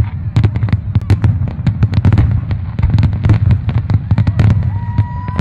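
Aerial fireworks show: shells bursting in quick succession, many sharp bangs over a continuous deep rumble. A thin whistle rises near the end.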